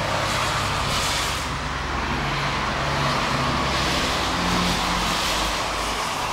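Cars driving past on a wet road: tyre hiss that swells and fades twice, over a low engine hum.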